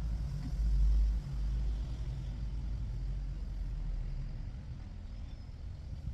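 Wind buffeting the microphone, giving a low rumble that is strongest in the first second and eases abruptly just after, then continues more steadily.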